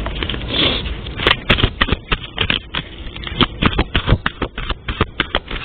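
Cards being shuffled by hand: a quick, irregular run of sharp slaps and clicks.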